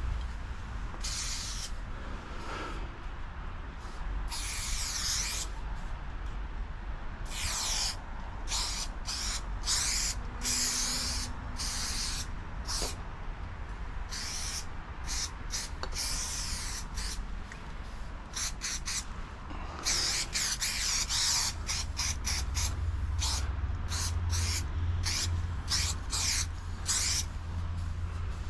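Aerosol spray-paint can hissing in many separate bursts, from quick spurts to about two seconds long, with the bursts coming shorter and faster near the end. A steady low rumble runs beneath.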